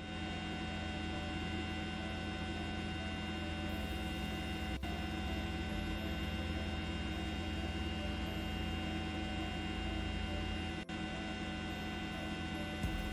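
A steady hum made of many fixed tones over a hiss, unchanging throughout, with two very brief dropouts about five and eleven seconds in.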